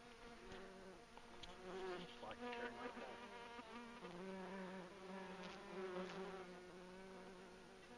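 A large flying insect buzzing close by, its wing hum wavering in pitch and loudness as it moves around.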